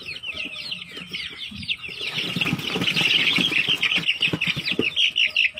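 A pen of young chicks peeping in rapid, high, falling chirps that grow louder and more frantic about two seconds in, as a hand reaches in and grabs at them. Low scuffling and knocks from the birds and the handling run underneath.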